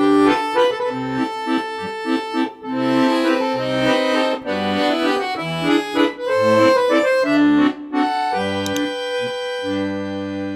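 Instrumental outro music: a lively tune over a regular alternating bass line, ending near the end on one long held chord that begins to fade.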